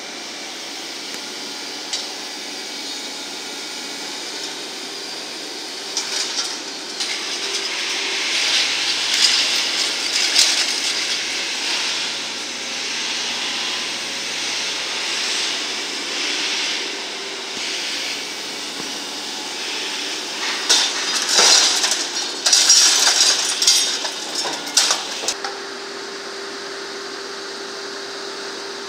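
Cat 0.45 m³ hydraulic backhoe running while its magnet crusher attachment grabs and loads balled scrap rebar among concrete rubble. Metal and rubble clatter and scrape in two louder spells, from about six seconds in and again from about twenty seconds in.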